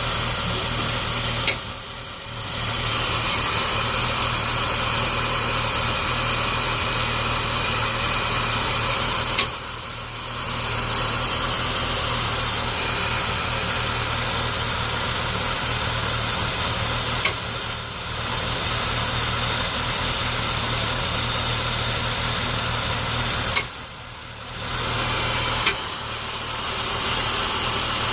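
BMW 530i's straight-six engine idling steadily, broken several times by a sharp knock, each followed by a brief dip in the sound. It is the strange knocking and rumbling from the engine that the owner hears at cold start and cannot explain.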